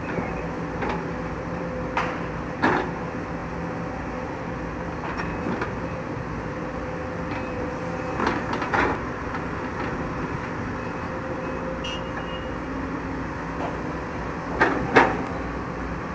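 CASE 210 excavators at work: a steady diesel engine drone with sharp knocks from the digging, twice early, a few in the middle, and the loudest pair near the end.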